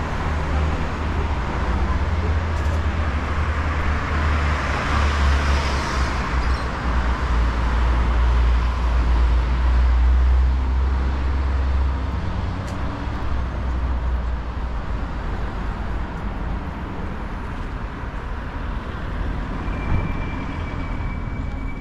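City street traffic: cars passing on a boulevard, with a deep rumble and a swell of tyre and engine noise in the first half that eases off about halfway through. A faint steady whine comes in near the end.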